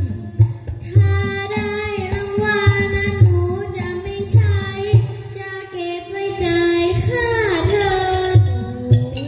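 A young girl singing a Thai likay song into a microphone over the band's accompaniment, with a regular low drum beat about once a second. Her voice bends and glides between notes, with a long falling slide near the end.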